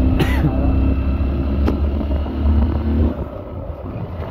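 Motorcycle engine running steadily beneath the rider, a low hum that eases off about three seconds in. A sharp click sounds about a second and a half in.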